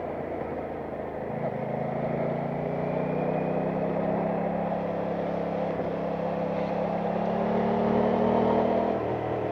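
Aprilia Tuono 660 parallel-twin motorcycle engine running under way, its pitch stepping about a second in, then climbing slowly as the bike gathers speed, and dropping near the end.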